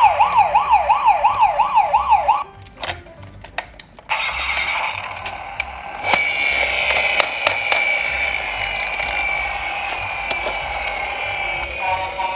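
Toy emergency vehicle's electronic siren wailing fast and evenly, about three to four swoops a second, then cutting off after about two seconds. A steady rushing noise with scattered clicks follows and grows louder about halfway through.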